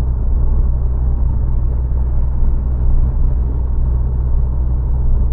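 Steady low in-cabin rumble of a Nissan Juke Nismo cruising at about 90 km/h: road, tyre and 1.6 DIG-T turbo engine noise, even and unchanging.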